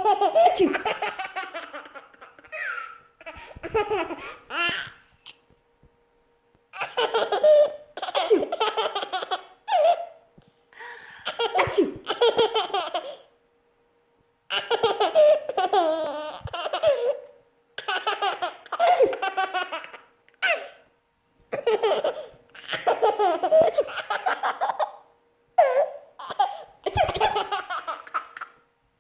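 A young child laughing hard in repeated bouts: over a dozen runs of quick, pulsing belly laughs, broken by short silences.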